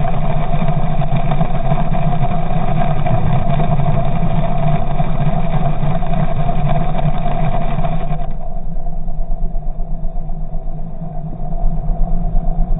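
Selva XSR 40 Dorado outboard motor running with its propeller turning in the water, picked up by a camera under the water. A steady engine drone, which about eight seconds in loses its higher hiss, turns duller and pulses unevenly.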